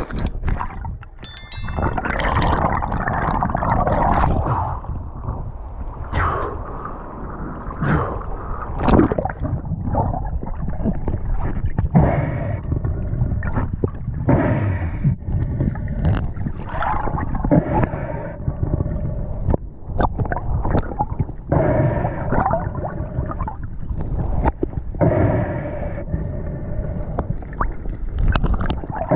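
Water gurgling and sloshing, with bubbles: continuous and uneven, with frequent short surges.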